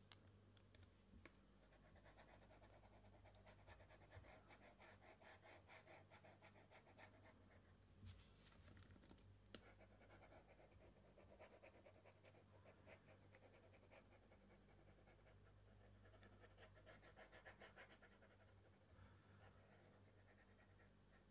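Near silence: a faint steady mains hum with soft, scratchy rustling on and off and a few faint clicks.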